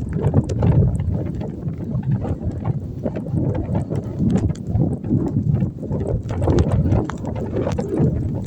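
Blizzard wind buffeting the microphone in gusts, with scattered light knocks and crunches through it.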